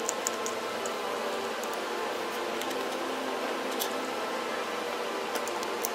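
Steady hiss of room noise with a few faint, light clicks as small rubber puzzle-eraser pieces and wheels are handled and pressed together.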